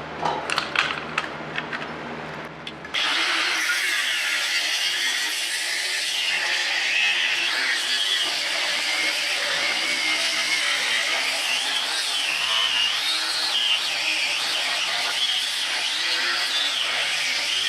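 Bandsaw cutting through a steel bar: a few clicks and knocks, then about three seconds in the saw starts cutting and runs steadily with a wavering high-pitched hiss.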